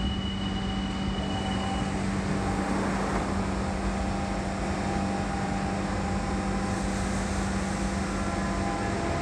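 London Underground Central Line 1992-stock train standing at the platform, its equipment giving a steady hum over the platform's rumble, with a high steady tone for about the first two seconds.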